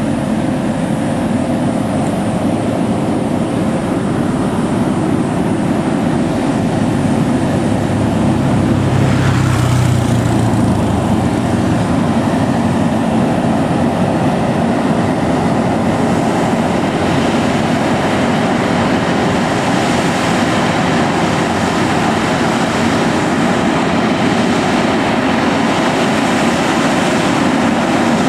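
Diesel engine of a loaded Scania heavy truck running hard under load on a steep climb, a steady dense rumble with a deeper surge about ten seconds in.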